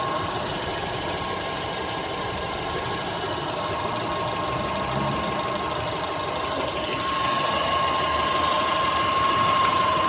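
Car engine idling with the air conditioning switched on, with a steady grinding noise that comes only when the A/C is on. A high steady whine runs through it and gets louder about seven seconds in.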